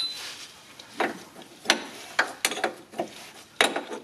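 Metal wrench and gloved hands working on the cap of an inline oil filter housing as it is threaded back on: a handful of irregular clicks and taps with some rubbing between.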